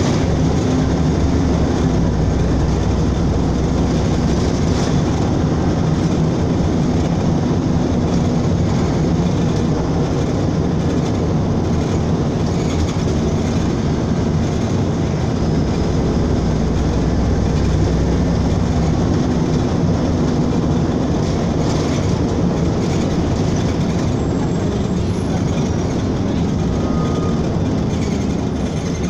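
Cabin noise of a LiAZ-5292.22 city bus under way: steady diesel engine hum and road noise, the engine note drifting up and down in pitch, easing slightly near the end.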